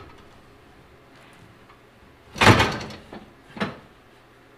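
Two clanks of steel rear-suspension parts being shifted under a car. The first, about halfway through, is loud and rattles for about half a second. The second, a second later, is shorter and quieter.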